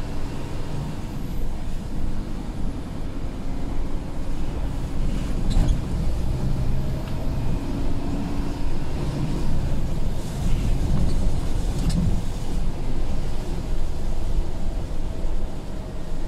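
Scania P250 truck's diesel engine running at driving speed with tyre and road noise on a wet road, heard from inside the cab. A few faint swishes of the windscreen wipers come through over the steady rumble.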